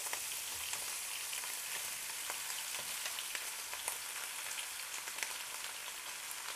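Salted pork fat and meat frying in a pan over high heat: a steady sizzle with scattered small crackles, as raw potato chunks are spooned in on top.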